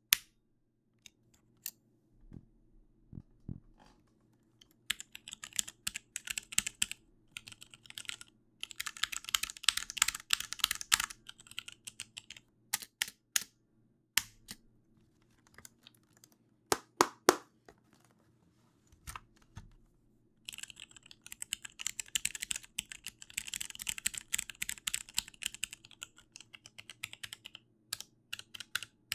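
Computer keyboard being typed on: quick runs of key clacks, the longest for about seven seconds from twenty seconds in, with single key strikes between them, two louder ones near the middle.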